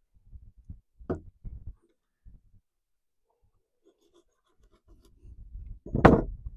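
A large knife cutting and scraping through a grouse gizzard on a wooden tabletop, with soft low knocks. About six seconds in comes one loud knock as the knife is set down on the wooden table.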